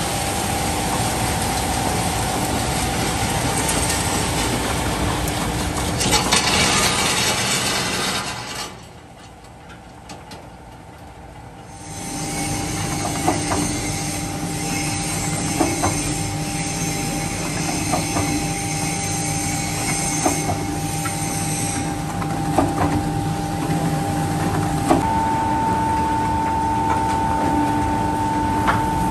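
Concrete batching plant machinery running: the steady rumble and rattle of the aggregate conveyor belt and the 0.5 m³ pan mixer, with steady whines and scattered knocks. The noise drops much quieter for a few seconds about a third of the way in, and a higher whine joins near the end as the mixer discharges.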